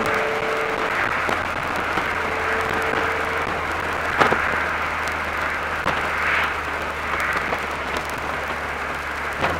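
Mercedes-Benz SLK 230 Kompressor's supercharged 2.3-litre four-cylinder engine running at a steady speed while cruising, under a constant hiss of wind and tyre noise. A couple of sharp clicks come about four and six seconds in.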